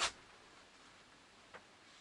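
Two sharp clicks over faint background hiss: a loud one at the start and a softer one about a second and a half later.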